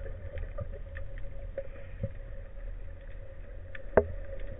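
Underwater ambience on a breath-hold spearfishing dive: a low rumble and a steady hum, with scattered faint crackling clicks and one sharp click about four seconds in.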